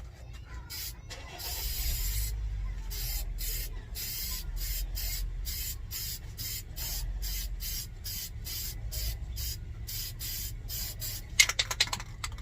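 Aerosol spray paint can hissing in short repeated bursts, about two or three a second, with a longer spray about two seconds in, as plastic light trims are coated. Near the end come a few sharp clicks, the rattle of the can being shaken.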